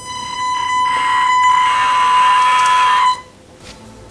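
Hydraulic pump of a 1:14 scale RC hydraulic compact track loader running with a steady high whine, getting louder and rougher about halfway as it works the lift arms and bucket, then cutting off suddenly about three seconds in.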